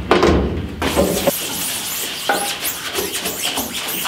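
A stiff brush scrubbing foaming degreaser across the wet mesh of a screen-printing screen. From about a second in it makes a fast, rhythmic scratchy swishing, about five strokes a second.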